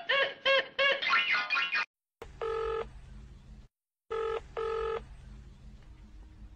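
A telephone call ringing out: the ringback tone on the line of a desk phone, a steady beep about two and a half seconds in, then a double beep about four seconds in, over a low line hum. Before it, a snatch of cartoon music cuts off about two seconds in.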